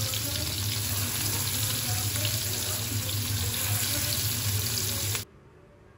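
Prawns frying in hot oil in a frying pan: a steady sizzle that cuts off suddenly about five seconds in.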